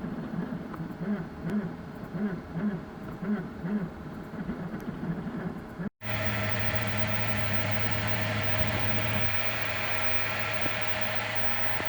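3D printer at work: its stepper motors sing in short pitched strokes, about two a second, as the print head moves back and forth. About six seconds in the sound cuts to a steady machine hum with fan hiss.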